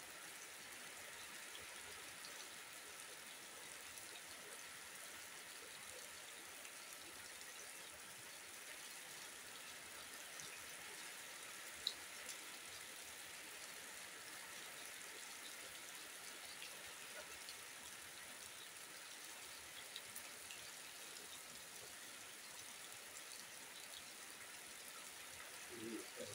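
Steady, faint rain hiss: rain falling on wet ground and foliage, with one sharp click about halfway through.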